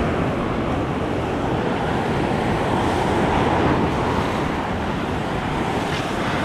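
Sea surf washing over breakwater rocks, a steady rushing, with wind buffeting the microphone.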